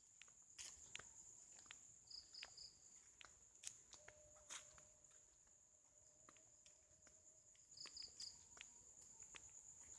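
Faint night ambience: a steady high-pitched insect trill, joined twice by a quick run of three chirps, with scattered soft footsteps.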